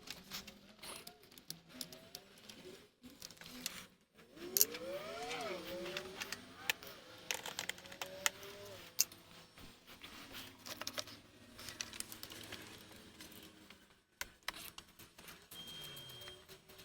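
Hand tools working on the starter bolts: irregular sharp metal clicks and taps with short runs of quick clicking like a ratchet wrench, under faint background voices.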